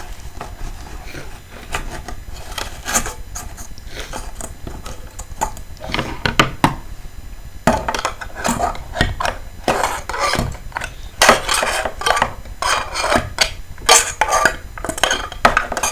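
Paper towels being crumpled and pushed into an empty aluminium drink can: irregular crinkling and rustling with tinny knocks and clanks from the thin can, busier over the second half.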